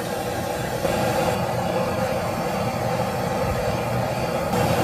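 Gas torch burning with a steady hissing roar, heating a Suzuki Samurai rear-axle bearing part so it expands to fit onto the axle. It grows a little louder about a second in.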